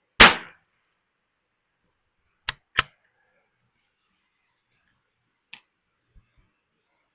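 A single shot from a Ruger Precision Rimfire .22 LR bolt-action rifle: one sharp crack with a short ringing tail. About two seconds later come two quick sharp clicks a third of a second apart as the bolt is worked, then a couple of faint ticks.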